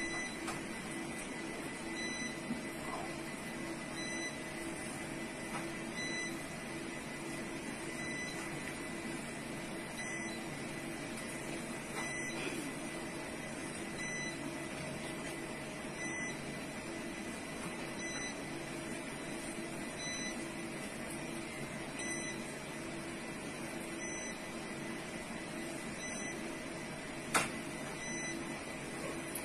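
Steady electrical hum and hiss with a few constant tones, and a single sharp click near the end.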